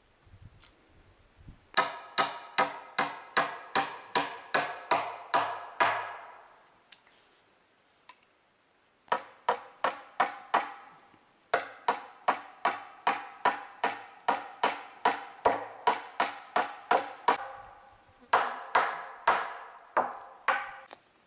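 Hammer driving nails into a wooden pole held against a tree trunk: quick strikes, about three a second, each with a short metallic ring. They come in four runs with short pauses between.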